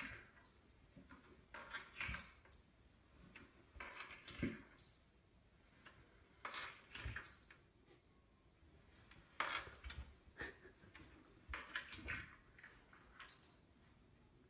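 A cat shifting and sliding on wooden stair treads: short bursts of brushing and scraping about every two seconds, most with a faint high clink.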